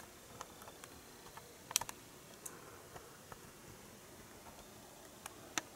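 Faint, irregular clicks and light taps over quiet room tone, the clearest a quick double tick a little under two seconds in.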